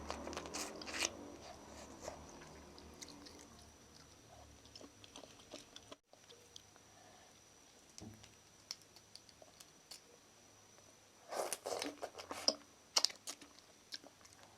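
Close-miked chewing and wet mouth clicks from eating instant ramen noodle soup with shrimp and egg. Bunches of clicks come near the start and again about three-quarters of the way in, with quieter chewing between and a brief cut to silence about 6 seconds in.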